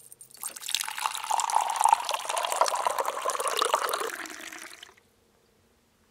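Liquid poured from a ceramic teapot's spout into a small ceramic cup: a splashing stream that runs for about four seconds and then stops.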